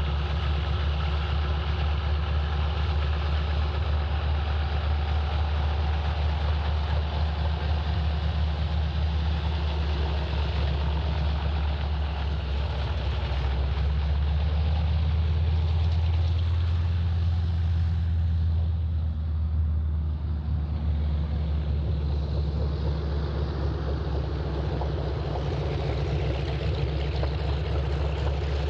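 PZL M-18 Dromader's nine-cylinder radial engine running at low power as the crop duster taxis, with a steady deep beat. It grows louder in the middle as the aircraft passes close, then turns duller as it moves away.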